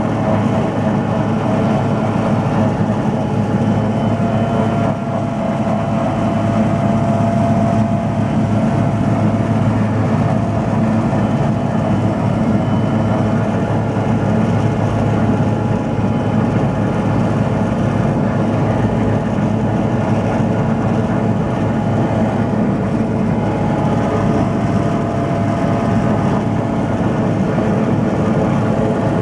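Sikorsky S-61N helicopter running on the ground, heard from inside the passenger cabin: its twin turboshaft engines and rotor drive make a loud, steady drone with a low hum and a thinner whine over it.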